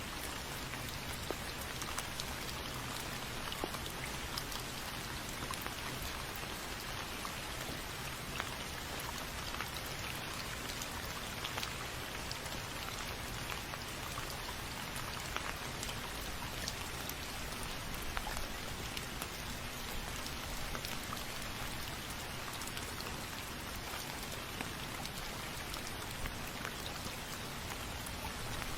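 Steady rain falling, with many small drops pattering on a surface.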